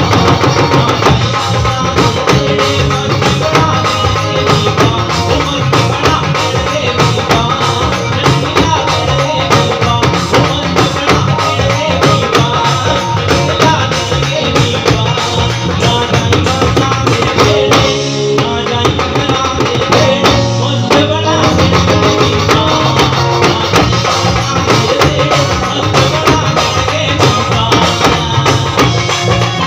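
Loud live band music through a PA system: a man singing into a microphone over electric guitar and drums with a steady beat.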